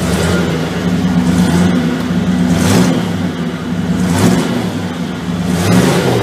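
A 1956 Chevrolet pickup's engine running, blipped three times with the accelerator, each rev rising and falling back toward a low idle.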